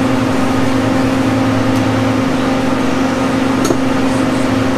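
Shop heater running with a steady hum.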